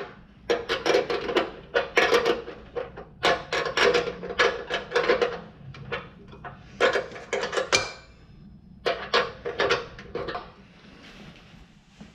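Wrench tightening the horn mounting nuts: several bursts of rapid metallic clicking, with short pauses between.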